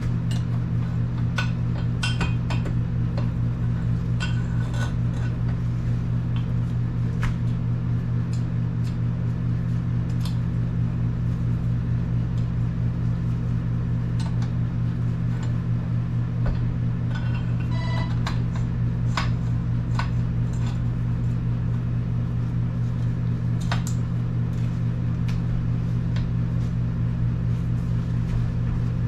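A steady low hum, as of a running motor or machine, unchanging throughout, with scattered light clicks over it.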